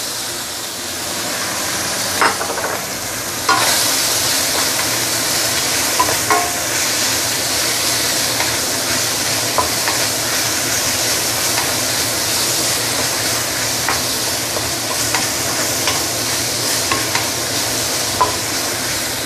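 Cabbage sizzling in hot oil in a stainless steel wok, stirred with a wooden spatula that knocks against the pan now and then. The sizzle grows a little louder a few seconds in.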